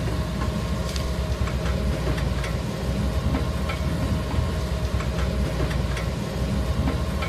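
Heavy machinery running: a steady low rumble with scattered light clicks and knocks.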